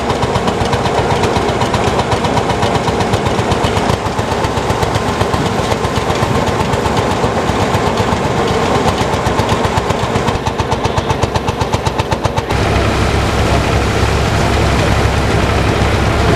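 Old belt-driven threshing machine running, driven by an engine with a rapid, even beat. About three-quarters of the way through the sound changes to a heavier, deeper hum.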